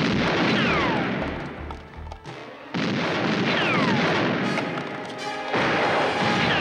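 Three loud bursts of TV-style gunfire, each followed by a falling ricochet whine, about two and three-quarter seconds apart.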